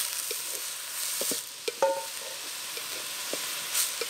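Chopped onions sizzling in hot oil while a metal spatula stirs and scrapes them around an aluminium pot, with a sharp ringing clink of the spatula against the pot about two seconds in.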